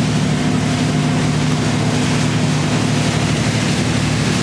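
Passenger river boat's engine running steadily under way: a constant low hum with an even rush of water and wind noise over it, heard from on board.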